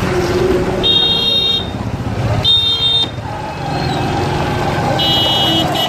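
Three short, high-pitched vehicle horn toots, about one, two and a half and five seconds in, over the steady running of motorcycle engines in traffic.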